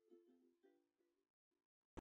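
Ukulele background music fading out: a couple of last faint plucked chords in the first second, then near silence.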